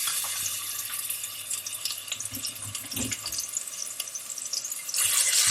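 Grated garlic sizzling in hot olive oil in a pan: a steady frying hiss with fine crackles, getting louder near the end.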